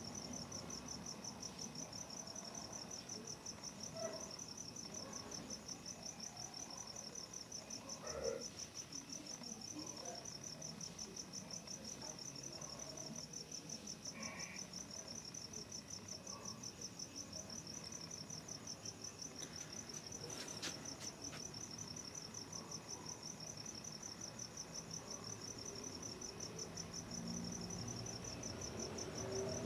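Crickets trilling steadily: one high, rapidly pulsing note that runs on without pause. A few faint knocks break in, near 4 and 8 seconds in and again around 20 seconds.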